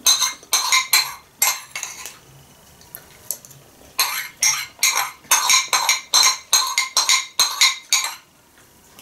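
A metal spoon clinking and scraping against a ceramic soup bowl as the last of the soup is spooned out of the tilted bowl. There are a few clinks in the first couple of seconds, then a quick run of them from about four seconds in until near the end.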